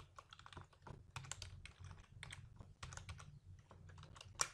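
Typing on a computer keyboard: a quick, uneven run of faint key clicks, with one sharper click near the end.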